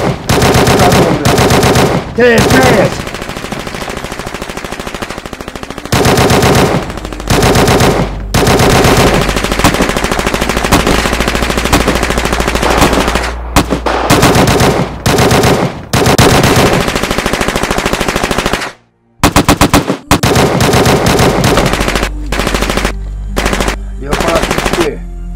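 Long bursts of rapid automatic gunfire, one run after another, with a short break about nineteen seconds in.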